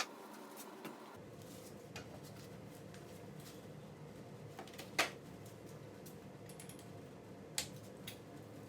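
A few sharp metallic clinks and taps from hand tools handling a dirt bike wheel, the loudest about five seconds in and another near the end, over a faint steady hum.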